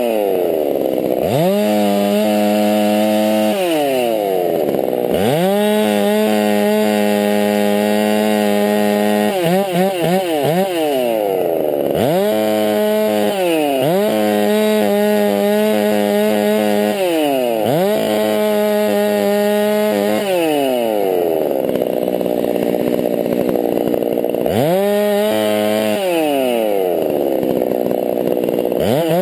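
Modified (walkerized) Husqvarna 390XP two-stroke chainsaw bucking arbutus limbs: revved up to full throttle for each cut and let drop back toward idle between cuts, over and over, about eight times.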